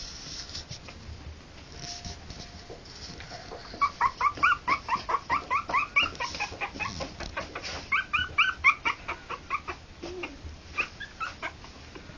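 Three-week-old harlequin poodle puppies squeaking and whimpering in quick high-pitched runs of about five squeaks a second, starting about four seconds in and again about eight seconds in.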